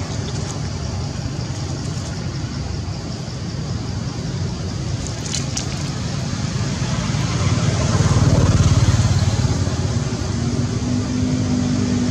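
Steady low rumble of motor traffic, swelling as a vehicle passes about eight seconds in, with a steady engine hum near the end.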